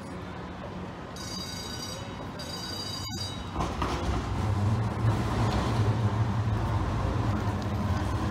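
TriMet MAX light-rail train approaching along street track, its low motor hum and wheel noise growing steadily louder as it nears. Thin high-pitched whines sound for a couple of seconds early in the approach.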